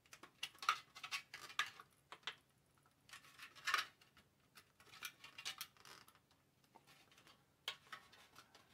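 Faint, scattered plastic clicks and knocks as a plastic rear mounting piece is pressed onto the back of a Ubiquiti LiteBeam AC Gen 2 dish's panels, not yet snapped into place.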